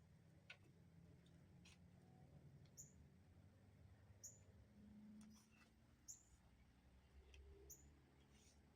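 Near silence: faint short high chirps repeating about every second and a half, with a few faint clicks.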